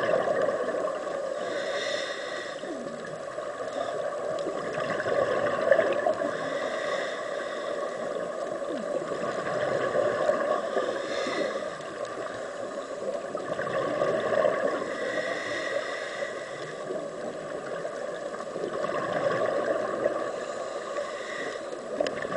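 Underwater sound picked up through a camera housing: gurgling bubbles that swell and fade every few seconds, in the rhythm of a scuba diver's exhaled breaths, over a steady hiss.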